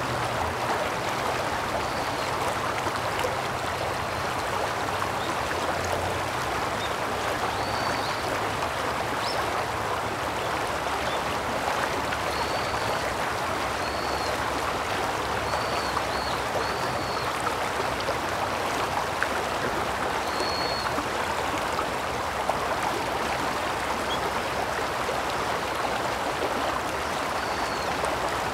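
Shallow river flowing and babbling over stones, a steady even rush of water, with a few short high chirps now and then.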